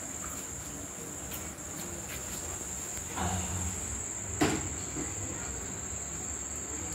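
A steady, high-pitched insect trill, with faint rustling of a sari being unfolded and a single sharp tap about four and a half seconds in.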